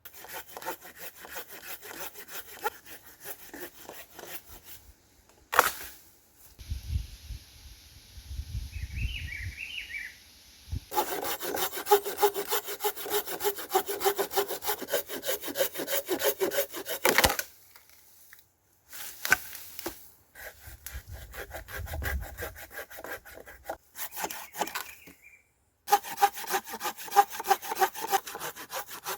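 Hand saw cutting wood with fast, even strokes, in several passages separated by abrupt breaks. Between the passages there is a low rumble.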